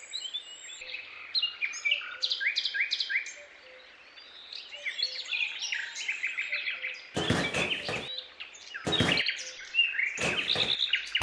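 Birds chirping and singing in quick, repeated short phrases. Near the end come a few brief rustling, scraping handling noises as a plastic pond shell is set down into sand and pressed in.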